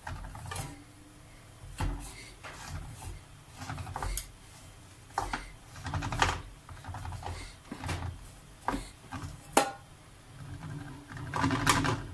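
A metal spoon scraping and clicking against a round metal baking tray in irregular strokes, spreading a thick custard layer over kunafa.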